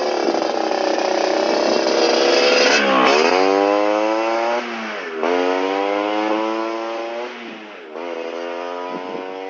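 Motorcycle engine accelerating through an aftermarket Champion exhaust. The engine note climbs, then drops sharply three times as the rider shifts up through the gears.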